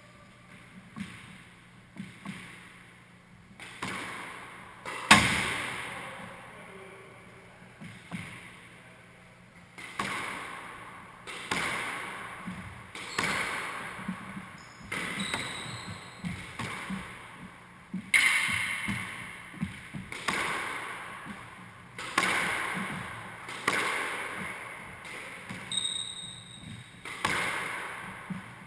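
Squash ball being hit back and forth in a rally: a series of sharp, echoing knocks of racket strikes and the ball hitting the court walls. The loudest knock comes about five seconds in, and the hits come about once a second later on.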